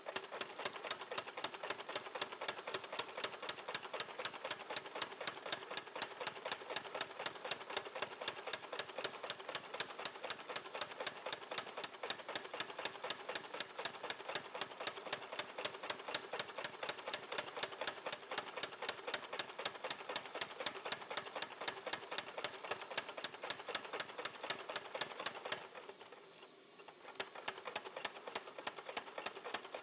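Rapid, evenly spaced hammer blows on steel, about five a second, typical of a power hammer forging a knife blade; the blows stop for about a second and a half near the end, then start again.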